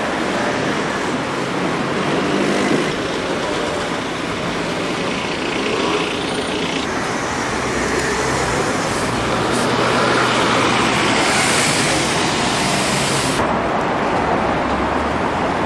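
Steady city traffic noise, with a louder hiss for a couple of seconds late on.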